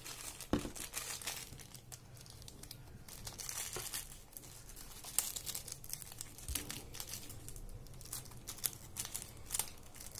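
Small plastic bag crinkling and crackling in the fingers in short, irregular bursts while spare earphone parts are handled.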